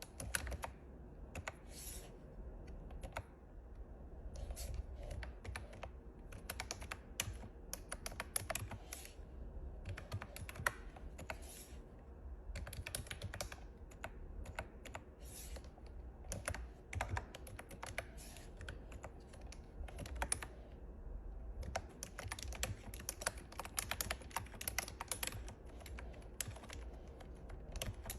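Typing on a computer keyboard: quick runs of key clicks in irregular bursts, with short pauses between them.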